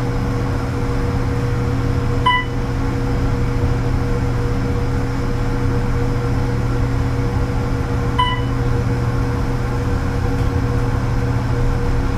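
Steady hum of an old Otis traction elevator cab in travel, with the cab fan running. Two short dings sound about six seconds apart from the elevator's chime.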